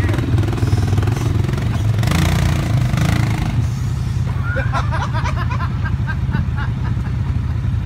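ATV engine running under load as it climbs a loose dirt mound: a steady low drone, with a louder, rougher stretch about two to three and a half seconds in.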